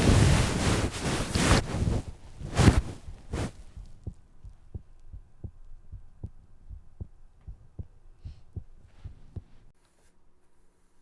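Low, evenly spaced heartbeat-like thumps, about one to two a second, used as a sound effect, stopping shortly before the end. Over the first three to four seconds a loud rushing noise lies on top of them.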